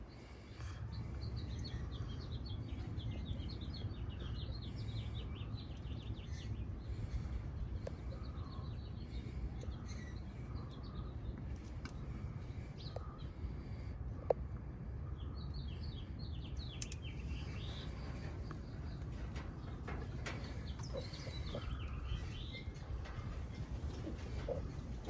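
Small birds chirping in quick repeated phrases, over a steady low rumble, with a few faint clicks and one sharp click midway.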